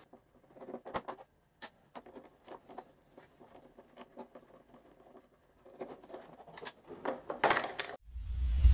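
Small scattered clicks and scratches of a Torx screwdriver and hard plastic parts as the brew-unit carriage inside a DeLonghi ECAM22.110 coffee machine is unscrewed. Near the end a sudden loud rushing noise with a deep rumble cuts in.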